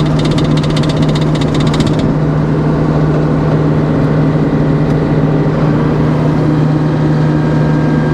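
Sawmill's engine running steadily. A fast, high clatter rides over it for about the first two seconds, then stops suddenly.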